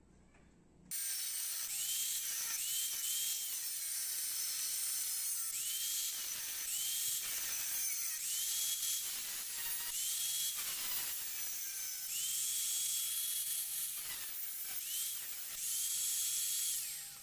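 Handheld angle grinder with an abrasive disc grinding the edge of a forged steel sickle blade to smooth it: a steady hissing grind whose whine repeatedly rises and falls in pitch. It starts about a second in and stops just before the end.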